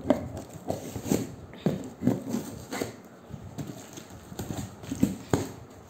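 Knife slitting the packing tape along the top seam of a large cardboard box: a string of short, sharp scrapes and knocks on the cardboard at irregular intervals, roughly one every half second.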